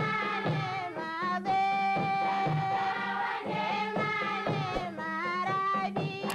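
Background music: a melody of held notes that bend and glide, over a steady accompaniment.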